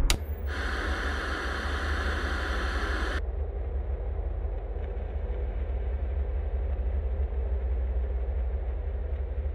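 A steady low rumbling drone. It opens with a sharp click, and a band of hiss like static joins it from about half a second to three seconds in.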